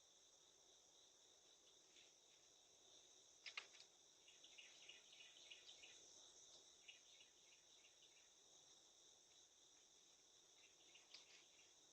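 Faint, steady high-pitched insect chorus of crickets trilling, with a sharp click a few seconds in followed by a scatter of short chirps.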